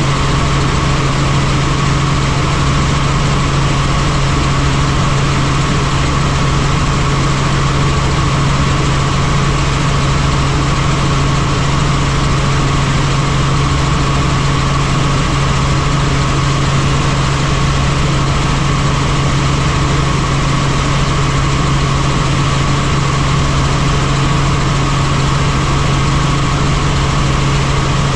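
Helicopter running in flight: a loud, steady drone of engine and rotors, with a constant low hum and a fainter higher whine.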